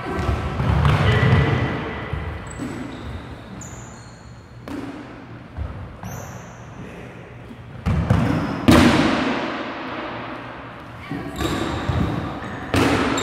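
Dodgeballs thrown and hitting the hardwood gym floor and players: about half a dozen separate thuds and bounces, echoing in the hall, the loudest a little under nine seconds in.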